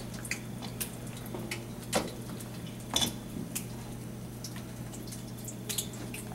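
A stainless steel mixing bowl clinks sharply a few times while battered fish is handled in it, over a steady low hum and a faint even hiss.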